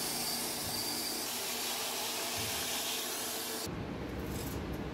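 6x48-inch belt sander with a 120-grit Cubitron belt grinding the edge of a long steel knife blade: a steady hiss of steel on the abrasive over the sander motor's hum. The grinding stops about three-quarters of the way through.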